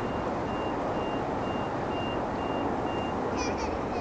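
A vehicle's reversing alarm beeping at one steady pitch about twice a second over a steady low rumble. The beeping stops about three seconds in, and brief high chirps follow near the end.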